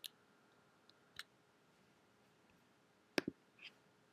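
Computer mouse clicks over faint room tone: one at the start, another about a second in, then a quick double click about three seconds in and a softer click just after.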